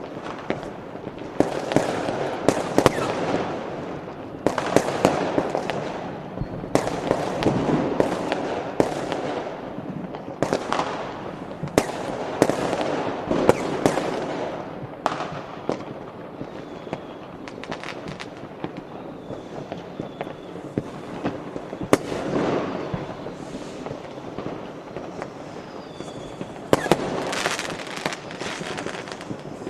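New Year's Eve fireworks and firecrackers going off: a dense run of sharp bangs and crackling bursts, with a few faint whistles in the second half.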